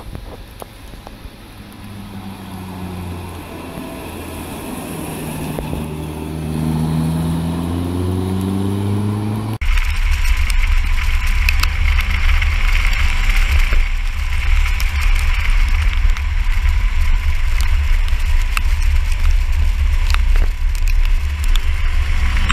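Toyota AE86 Sprinter approaching on a wet road, its engine note rising in pitch and growing louder. About ten seconds in the sound cuts abruptly to the car's side-mounted camera: loud, steady wind and road roar with tyre hiss from the wet road and scattered sharp ticks.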